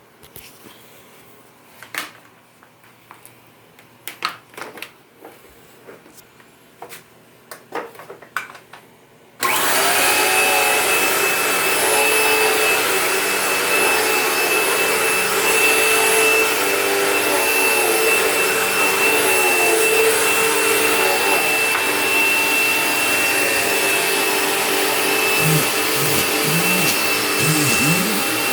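Dirt Devil Vision upright vacuum cleaner: a few clicks and knocks of handling, then about nine seconds in it is switched on and runs loud and steady with a high whine.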